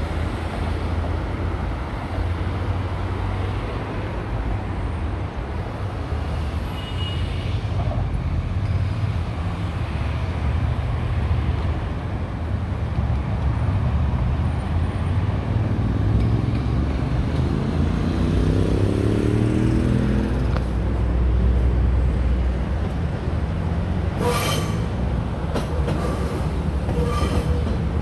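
Athens Line 1 electric train approaching and running beneath, over steady road-traffic rumble. Its wheels clack sharply over rail joints and points near the end.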